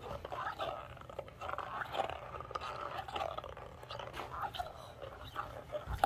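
Newfoundland dog making irregular, wet chewing and lip-smacking mouth sounds.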